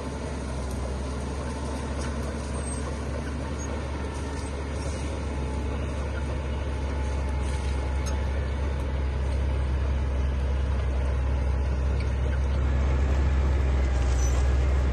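Heavy diesel earthmoving machinery running with a steady deep rumble that grows gradually louder, rising again about two-thirds of the way through.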